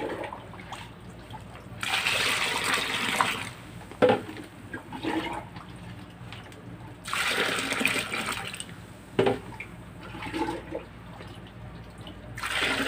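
Liquid gushing and splashing into a tank of muddy ore slurry in three spells of a second or two each, with a few light knocks between.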